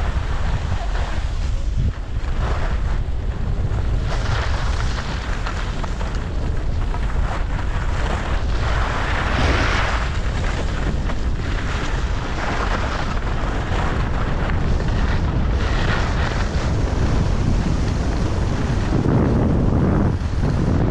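Wind buffeting an action camera's microphone during a fast ski descent, a constant low rumble, with skis scraping over hard, tracked snow in hissing swells every few seconds as the skier turns.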